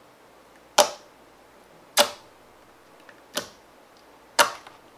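Four sharp clicks, spaced roughly a second apart.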